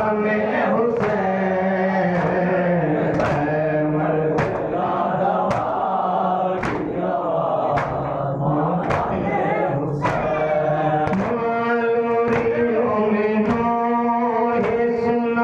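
Men chanting a noha together, the lead voice and crowd holding long sung notes, over a sharp rhythmic slap about once a second from chest-beating (matam).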